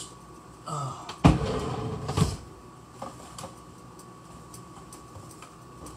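Household handling noise: two dull thumps about a second apart, with rustling between them, then a few light ticks over a faint steady hum.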